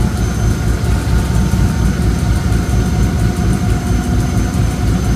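Diesel engine of a Czech class 749 'Bardotka' locomotive running steadily under power as the train pulls away from a station, heard from the cab.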